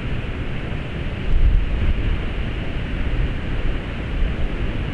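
Wind buffeting the microphone as a steady rush with a stronger gust about a second and a half in.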